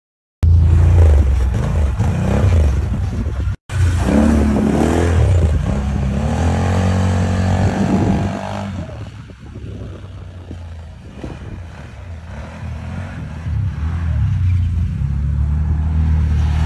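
ATV and side-by-side buggy engines running and revving. The engine pitch rises and falls several times in the first half, with a brief cut-out about three and a half seconds in. The sound then drops quieter for a few seconds before building again near the end.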